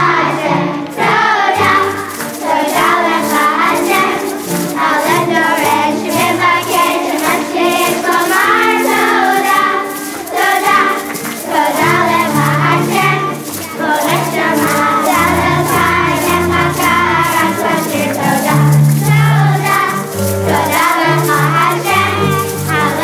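A children's choir singing a song together with instrumental accompaniment: moving bass notes and a steady beat.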